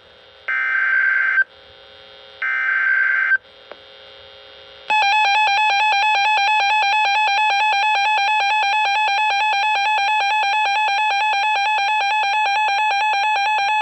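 Emergency Alert System broadcast: two one-second bursts of screeching digital header tones, then, about five seconds in, a long steady alert tone that lasts about nine seconds. Together they announce a new weather warning.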